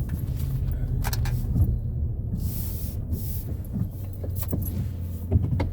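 Car engine running, a steady low hum heard from inside the cabin, with a few light clicks and knocks.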